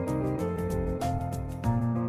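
Background music: a gentle instrumental piece with sustained notes changing every half second or so.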